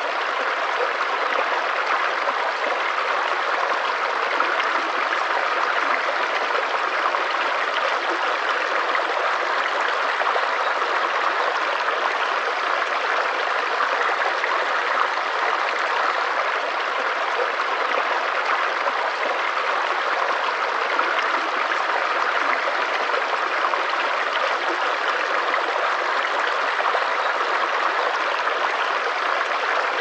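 Shallow rocky stream running over stones through a small riffle: a steady, even rush of water.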